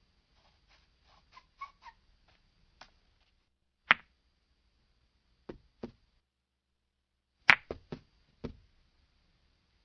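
A stick of chalk tapping and knocking against a board in short, sharp strikes at uneven intervals. A few faint light taps come first, then a loud single tap, a pair, and a quick run of four taps near the end.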